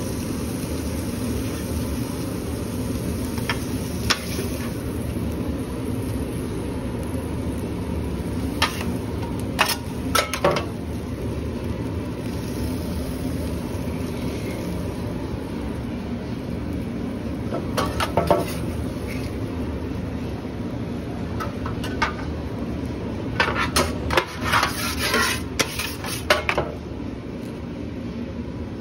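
Metal spatulas and utensils clinking and scraping on a flat-top griddle over a steady low rumble. The clinks come singly and in short clusters, most densely in the last few seconds.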